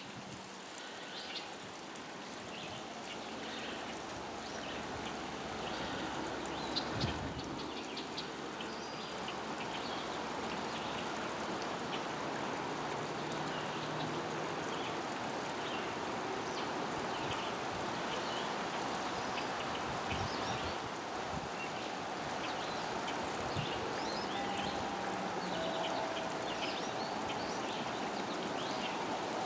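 Outdoor woodland ambience: a steady rushing hiss with scattered short high bird chirps throughout, and a dull thump about seven seconds in.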